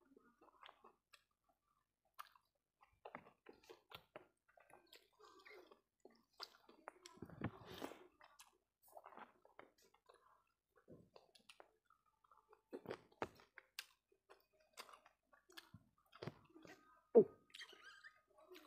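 Close-up eating sounds: wet chewing and lip smacks while eating fish and rice by hand, with soft squishes of rice being mixed by fingers on the plate. One sharp click a little after seventeen seconds is the loudest sound.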